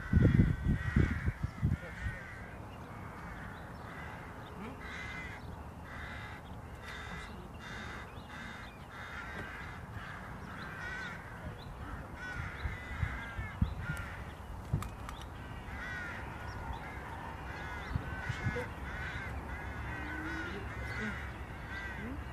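Birds calling repeatedly, a long run of short calls, over a steady low rumble. A loud low buffeting, like wind on the microphone, fills the first second or so.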